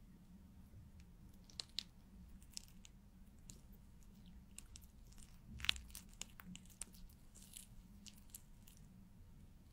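A marker tip drawing on a glass pane close to the microphone: scattered short, crisp scratches and taps. The sharpest tap comes a little over halfway through.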